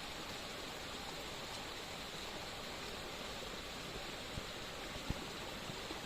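Heavy rain falling steadily in an even, unbroken hiss, with a couple of faint knocks late on.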